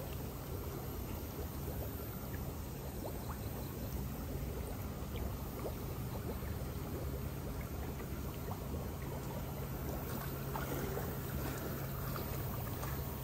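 Steady running and trickling water in shallow concrete fish ponds, with a low steady hum underneath.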